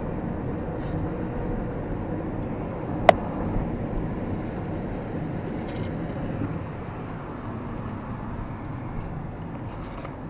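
Steady road and engine noise inside a moving car, with a single sharp click about three seconds in.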